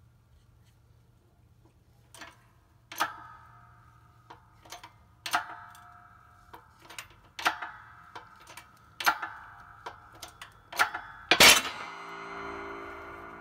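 Shop hydraulic press loading a homemade driver against a wrist pin bushing in a Cummins 4BT connecting rod: sharp metallic pings with a short ring, about every two seconds. A loud bang comes a little before the end as the driver slips off the rod, a failed press, and leaves a lingering ring.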